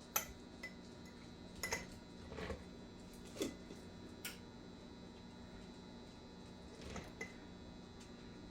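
Coleslaw being packed by hand into glass canning jars: scattered light clicks and knocks, mostly in the first half, and two close together near the end.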